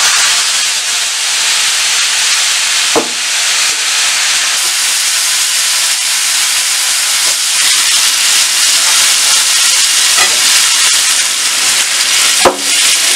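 Boiled dal and vegetables sizzling steadily in hot ghee tempered with cumin in a steel kadai, with a few knocks of a metal ladle against the pan about three, ten and twelve seconds in.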